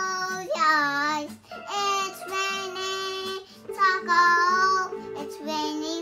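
A small child singing in a high voice, in short phrases, while pressing keys on a toy cat keyboard, whose steady electronic notes sound underneath the voice.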